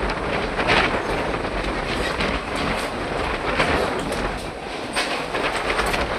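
Jet engine noise from a Boeing 737 MAX 8's CFM LEAP-1B turbofans: a steady, loud rushing rumble with an irregular crackle.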